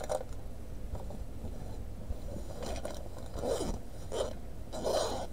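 Plastic packaging and folded cotton canvas rustling and crinkling as hands open and unfold a stamped cross stitch kit's fabric, in a few short bursts from about two and a half seconds in.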